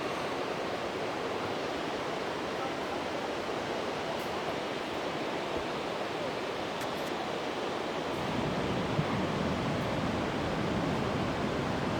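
Waterfall rushing: a steady hiss of falling water that grows louder and deeper about eight seconds in.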